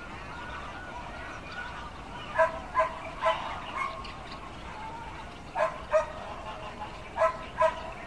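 A goose honking in loud, short calls: three or four a couple of seconds in, then two pairs of quick honks, over a steady background hum.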